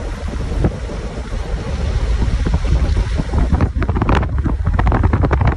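Wind buffeting a phone microphone at the window of a moving car, a loud low rumble, with road noise under it. From a little past halfway, a rapid run of crackling pops joins it.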